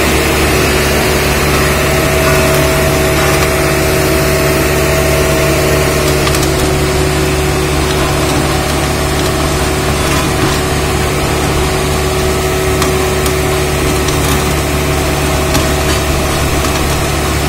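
Hamm HD99 tandem roller's diesel engine running at a steady speed, a constant drone with no revving.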